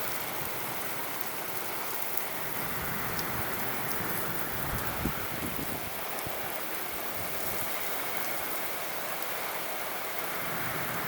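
Heavy rain pouring steadily, an even hiss of drops hitting the ground and nearby surfaces.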